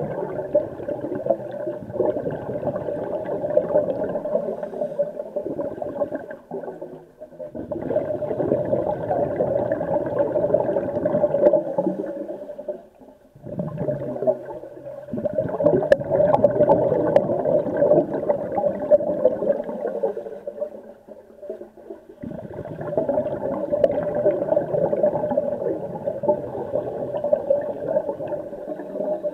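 Scuba regulator exhaust bubbling heard underwater, coming in long stretches of several seconds broken by short pauses, about four times, in the rhythm of a diver's breathing.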